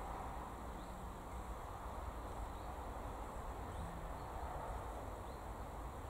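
Quiet rural outdoor ambience: a steady low rumble and soft hiss, with faint short chirps every second or so.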